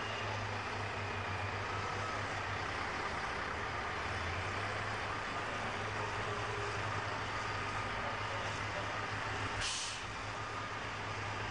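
Wheel loader's diesel engine running steadily as it lifts and swings a rail track panel. Near the end there is a short, sharp burst of hiss.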